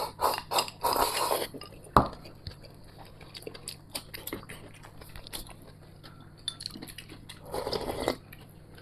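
Eating sounds: a slurp from a small bowl, a sharp clack of a bowl or chopsticks on the table about two seconds in, light clinks of chopsticks on china, then a long slurp of thin porridge from a large bowl near the end.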